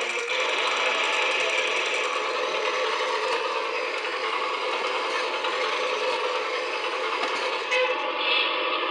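A toy's small gear mechanism running, a steady whirring clatter of gears.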